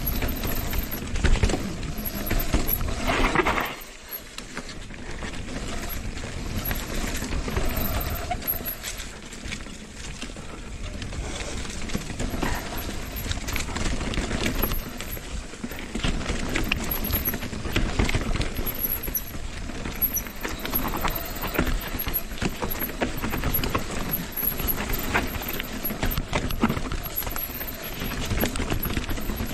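Mountain bike descending a dry, loose, rocky trail: tyres crunching over dirt and rock and the bike clattering over bumps, with dense irregular knocks throughout. It eases briefly about four seconds in.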